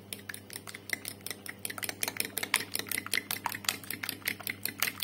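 A fork beating eggs in a ceramic bowl, clicking against the bowl in a quick, even rhythm several times a second.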